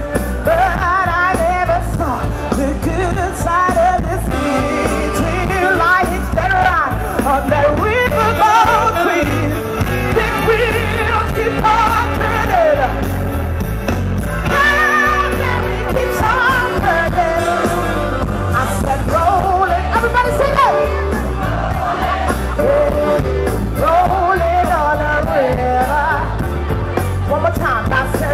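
A woman singing live into a microphone with a band behind her, playing an up-tempo rock-and-roll number over a steady beat.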